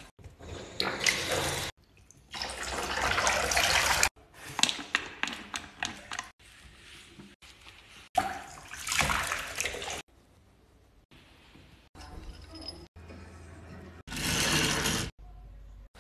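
Running water, heard in several short, abruptly cut bursts of rushing noise, as a wet miniature schnauzer is bathed.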